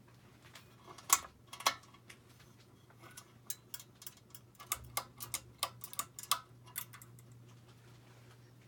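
Hunter Low Profile II ceiling fan with a steady low hum, and a series of sharp clicks and ticks: two loud ones about a second in, then a quicker run of about a dozen through the middle.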